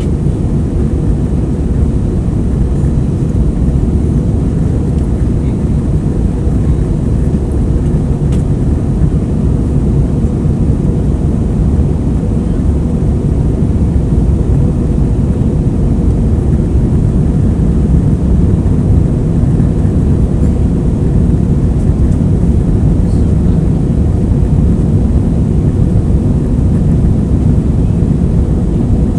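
Airliner cabin noise: a steady low rumble of the jet engines and airflow heard from inside the passenger cabin, with no sudden changes.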